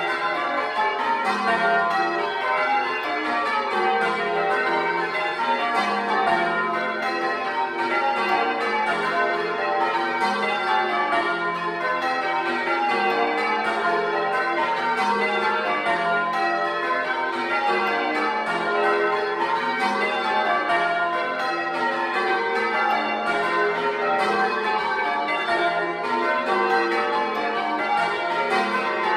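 A ring of ten church bells, the tenor of about 17 cwt tuned to F, being change-rung to Grandsire Caters, heard close up in the belfry: a steady, unbroken stream of bell strikes, each one ringing on into the next.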